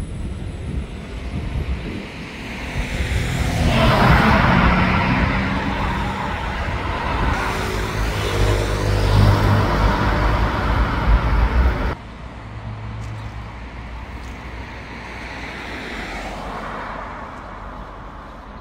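Urban street traffic: motor vehicles passing close by, swelling about four seconds in and staying loud with engine hum, then an abrupt cut about twelve seconds in to quieter traffic with one more pass near the end.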